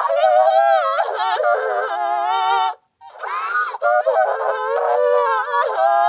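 Cartoon girl character crying in long, wavering, high-pitched wails, electronically altered so it sounds honk-like. One wail breaks off near the middle and a second begins about a third of a second later.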